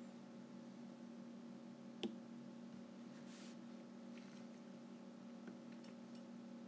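Low steady electrical hum, with one sharp tap of a stylus on a tablet screen about two seconds in and a few faint ticks later.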